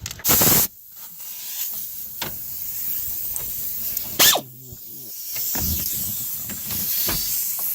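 Compressed air hissing as an air ratchet is hooked to its air hose: a short, loud blast of air right at the start, then a steady hiss of escaping air, with another brief blast about four seconds in.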